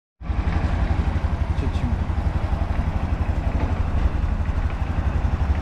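Small single-cylinder motorcycle engine running steadily, with a fast low throb.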